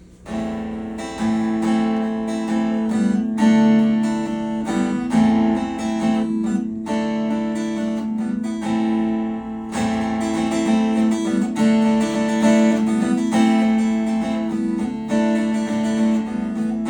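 Acoustic guitar strumming chords in an instrumental introduction, starting just after a short pause.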